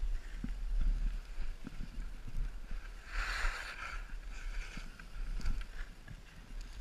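Wind rumbling on the microphone of a camera riding down a snowy ski run, with the hiss of snow scraping under the rider, swelling in a burst about three seconds in, and scattered low knocks.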